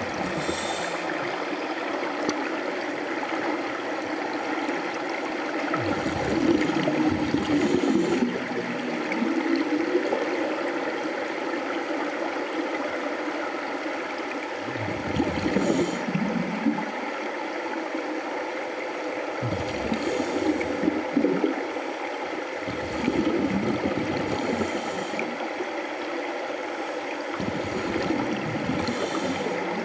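Underwater sound of scuba divers breathing through regulators: a steady rushing hiss of water with a burst of exhaled bubbles gurgling up every few seconds.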